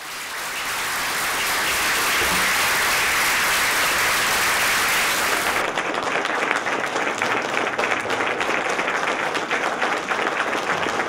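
A roomful of people applauding, swelling quickly over the first second or two and then holding steady. About halfway through it turns duller, with individual claps standing out more.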